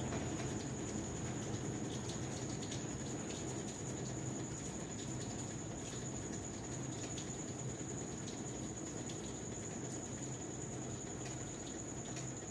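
GE King Capacity 15.1 kg top-load washing machine running steadily: a low motor hum with scattered light clicks.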